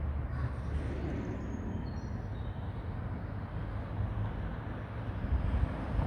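Outdoor city background: a steady low rumble of road traffic.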